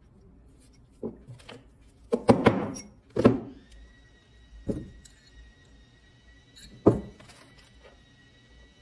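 Irregular sharp knocks and taps of metal tools at a jeweller's bench, each with a short ring. The loudest come about two and three seconds in. From about three and a half seconds in, a faint steady high whine runs under them.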